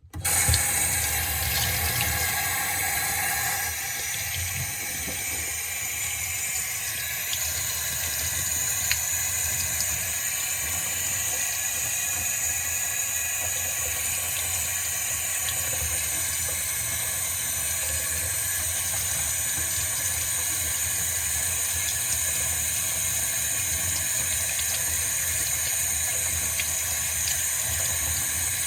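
Tap water running steadily into a sink, rinsing a front-loading washer's drain pump filter.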